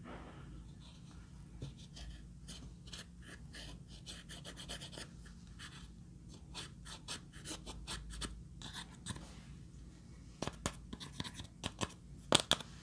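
A thin stick scraping and crumbling pressed eyeshadow out of a palette pan: quick, dry, scratchy strokes in runs, with a few louder clicks near the end.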